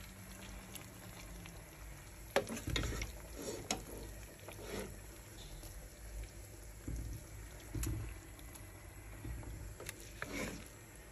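Plastic spatula scooping and scraping soft cooked quinoa in an aluminium pot, with several short knocks of the spatula against the pot, the sharpest about two and a half seconds in.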